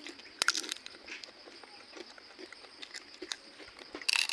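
Close-up eating sounds: two short, sharp crunching or slurping bursts, one about half a second in and one near the end, with small mouth clicks and chewing ticks between them.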